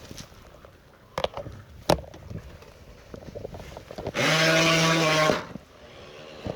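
Two sharp knocks, then the 9.6-volt electric motor of a Nikko Torpedo RC boat buzzing at a steady pitch in a burst of just over a second, about four seconds in, as the stuck boat is throttled.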